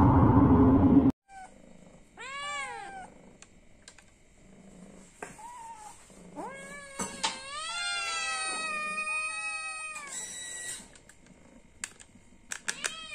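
Domestic cat meowing for food because it is hungry: a short rising-and-falling meow, a few shorter ones, then one long drawn-out meow in the middle, and another meow at the end. It opens with about a second of loud noise that cuts off suddenly, and a few sharp clicks come near the end.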